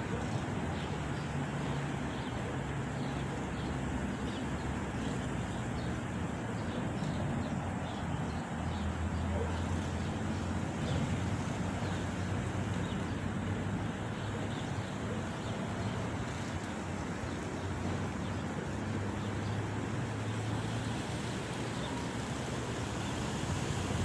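Steady breeze through palm fronds over a low, continuous rumble.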